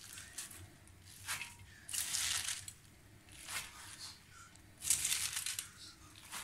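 Chopped fresh spinach leaves rustling and crunching as a hand presses and spreads them in a clay cooking pot, in about four short bursts.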